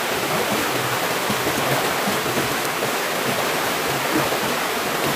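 Shallow stream water flowing steadily over rocks, an even rushing sound.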